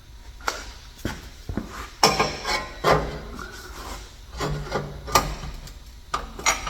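Metal exhaust mid pipes knocking and scraping against each other and the car's underside as they are worked into place, a string of irregular clanks and rubbing sounds, a few ringing briefly.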